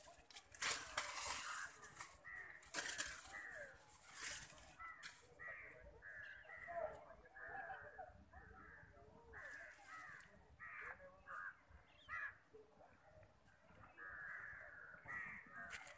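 Rustling and crackling of leafy branches as an Asian elephant pulls at its fodder with its trunk, loudest in the first few seconds. Through the rest, a bird repeatedly gives short, harsh caws.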